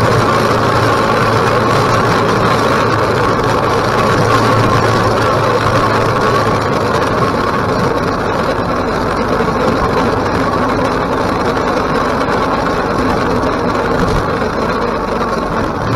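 KTM 1050 motorcycle's V-twin engine running steadily, with no marked revving or gear changes.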